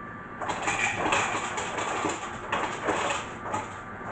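Ice cubes clattering into a cup: an uneven rattle for about three and a half seconds, with a few louder clacks.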